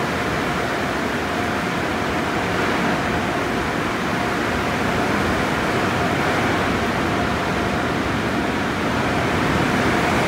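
Spinning cloth brushes in a car wash tunnel swishing over the car body with water spray, a steady rushing noise heard from inside the car, with a faint steady hum under it.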